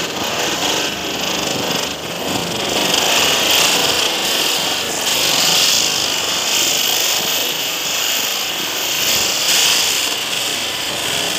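Ground spinner firework (chakri) whirling on the ground as it burns, giving off a steady, loud, high-pitched hiss as it sprays sparks.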